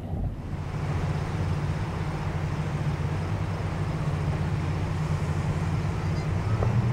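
Great Lakes freighter sounding a low, steady two-note drone that holds for about six seconds and steps up in pitch near the end, over a steady hiss.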